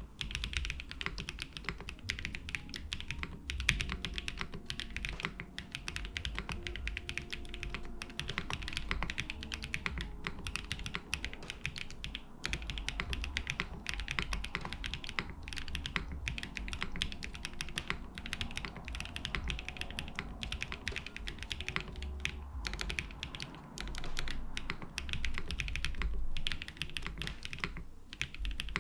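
Continuous fast typing on a custom mechanical keyboard: lubed JWK Endless Summer linear switches on a polycarbonate plate with GMK keycaps and plate and bottom foam, giving a dense, unbroken stream of keystroke clacks.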